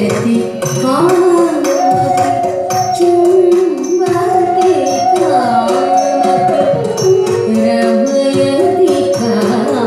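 Odissi classical dance music: a voice sings a wavering melodic line over sustained held tones, with regular hand-drum strokes keeping the rhythm.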